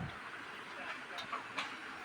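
A few faint, light clicks and taps over quiet room background, small pieces being handled during hands-on assembly.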